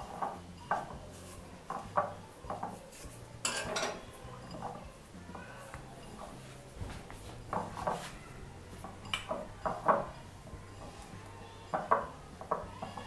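A hand mixing crumbly semolina, sugar and ghee in a glass bowl, with irregular light clinks as the fingers knock against the glass.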